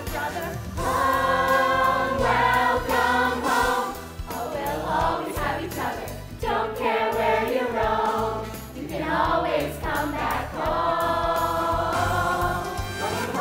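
Stage musical cast singing together as a chorus, in phrases with short breaks between them.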